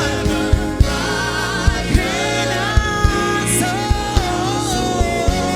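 Live gospel worship song: voices hold long notes over a band with a steady drum beat.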